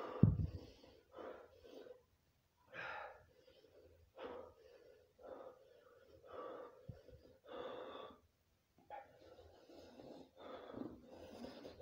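A man breathing hard and gasping through his open mouth, with a breath roughly every second, reacting to the burn of an extremely hot chip. A loud low thump comes just after the start.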